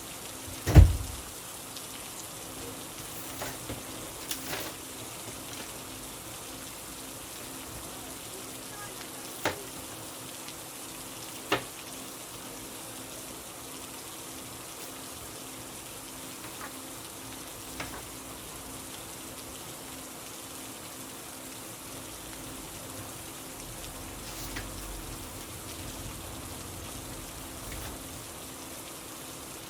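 Steady hiss of rain, with a single thump about a second in and a few sharp clicks later.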